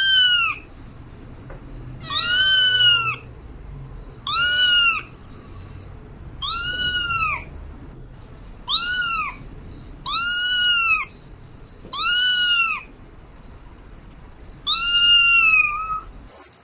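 A cat meowing eight times, about every two seconds. Each meow is a clear, high call that rises and then falls in pitch, a cat calling out as if for a mate.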